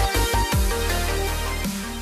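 Electronic dance music with a heavy bass line, with a rapid stuttering bass chop about half a second in, then a steady bass as the track fades out.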